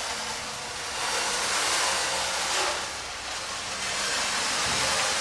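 Hand-worked puppet-theatre storm effect: a steady rushing hiss that swells and eases, loudest about two seconds in and again near the end.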